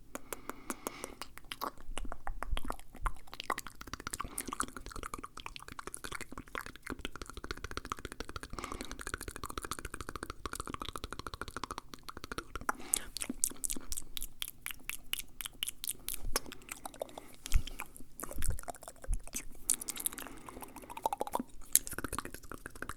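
Fast, wet ASMR mouth sounds close to the microphone: rapid tongue clicks and smacking, with a few louder pops near the end.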